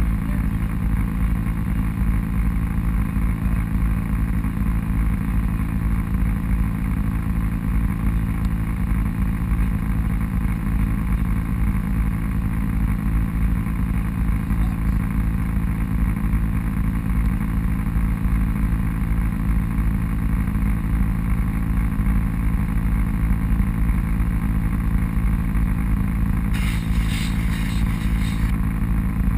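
Off-road vehicle engine running at a steady speed. A brief higher hiss lasting about two seconds comes near the end.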